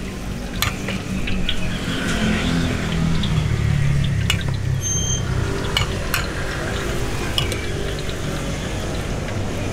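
Metal ladle and long metal rod scooping and scraping batter in a stainless steel bowl, with scattered sharp clinks of metal on metal, over a steady low background rumble.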